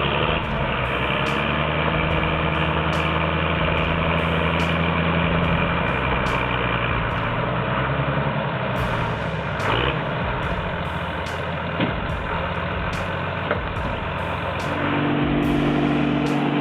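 Heavy vehicle engine running steadily under load, then revving higher near the end.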